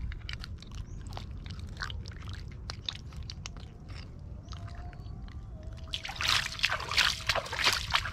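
Hands squelching and digging in wet mud and water in a mud crab's burrow, with small wet clicks over a steady low rumble. From about six seconds in it turns to louder sloshing and splashing as the crab is pulled out of the mud.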